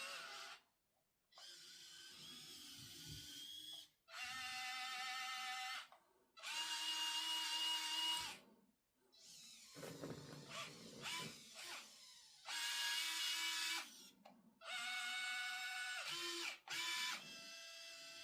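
Small electric motors of a 1:50 scale RC excavator whining in short bursts, starting and stopping every second or two as the machine's functions are worked, with a rougher, scraping stretch around the middle.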